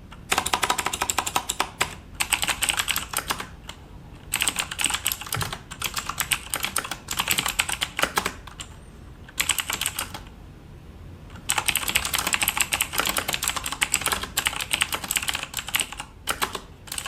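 Typing on a Corsair K70 RGB MK.2 mechanical keyboard with Cherry MX Blue switches: rapid keystrokes in bursts of one to four seconds with short pauses between them, the longest run in the second half. The owner says the keys sound more like a soft 'puh-puh-puh' than the usual crisp 'ka-ka-ka' of blue switches.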